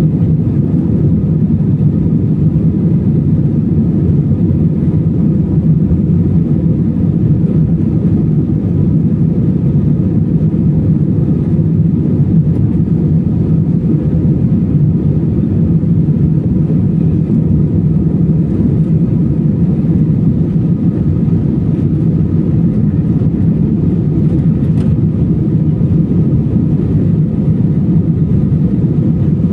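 Airbus A320 cabin noise heard inside the cabin at a window seat during the climb: a loud, steady roar of the engines and airflow, mostly deep, with faint steady tones above it.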